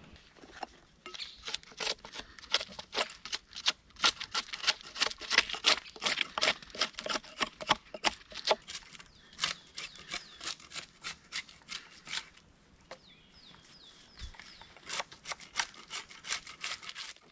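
Quick, irregular scraping strokes of a blade stripping bark from a pine pole, pausing for a couple of seconds near the middle. A bird chirps briefly several times in the pauses.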